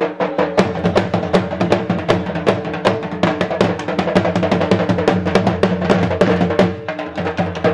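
Dhol, the Punjabi double-headed barrel drum, beaten with sticks in a quick, driving jhumar dance rhythm, over steady held tones.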